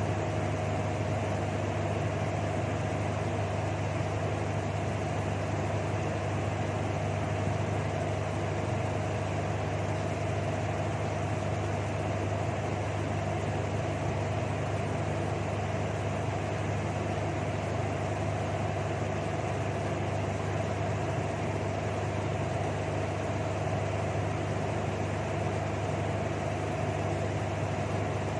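A steady low machine hum with a faint higher steady tone above it, unchanging in level.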